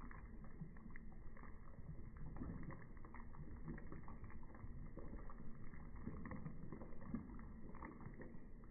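A metal ladle stirring and scooping broth in a stainless steel soup pot: soft liquid sloshing with scattered faint clinks.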